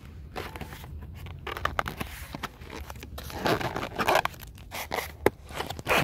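Nerf Stryfe packaging being handled and opened: scraping, rustling and tearing, with scattered clicks and knocks and one sharp click near the end.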